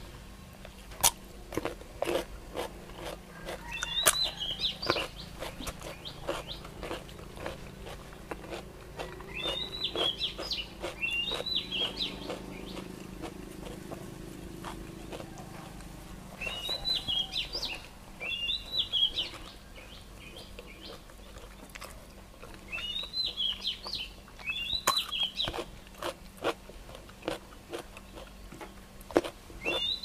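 Close-up biting, crunching and chewing of food, including crisp raw greens such as watercress, in many short crunches. Over it a bird calls every few seconds in short high phrases, often two in quick succession.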